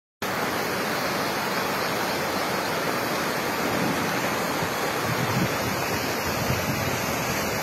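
Muddy floodwater of a rain-swollen hill stream rushing over stones and debris, a steady unbroken noise that starts just after the opening moment.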